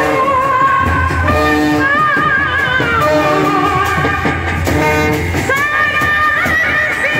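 Indian wedding brass band playing loudly, a wavering held melody over a steady low bass line from the sousaphones.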